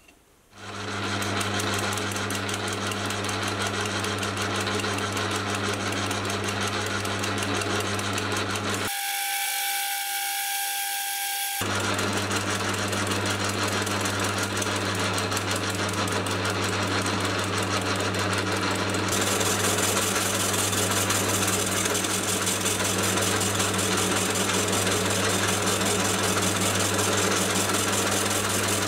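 Geared-head metal lathe running and turning an MDF honing wheel with a carbide insert: a steady motor and gear hum under the hiss of the cutter shaving the MDF. The sound starts about half a second in. For a couple of seconds around the one-third mark the hum gives way to a single steady tone. The cutting hiss grows brighter about two-thirds of the way through.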